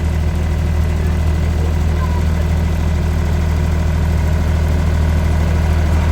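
Steady, unchanging engine drone with a strong low hum.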